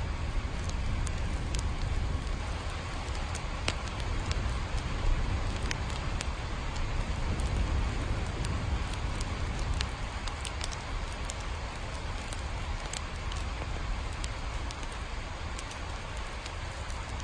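Steady rain falling, with many scattered sharp drip ticks over the hiss and a deep low rumble beneath.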